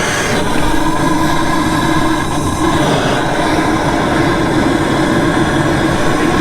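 Gas torch flames burning with a steady, loud rushing roar while heating a copper-brass radiator to solder its leaks.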